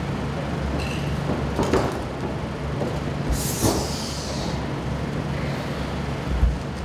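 Steady low hum of the hall, with a few thuds and a scuff as two wrestlers move and lock up on the ring canvas.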